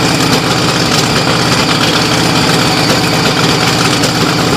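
BIGFOOT monster truck's engine idling steadily, a loud even running with no revving.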